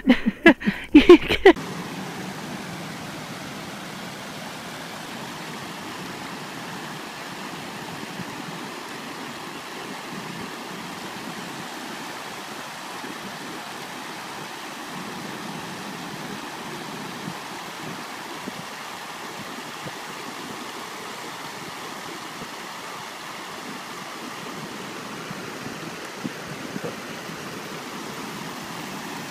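Shallow stream running over rocks and concrete stepping blocks: a steady rush of water.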